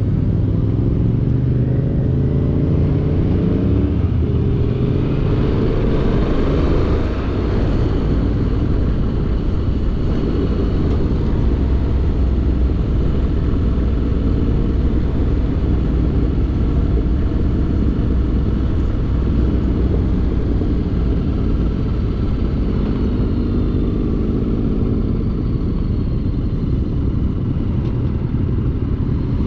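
Motorcycle engine running on the move, likely a Honda X-ADV 750 parallel twin. Its pitch rises as it accelerates in the first few seconds and again near the end, over a steady low rumble of wind and road.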